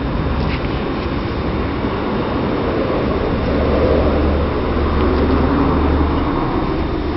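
Domestic cat purring steadily while being stroked, a low continuous rumble that grows a little louder midway.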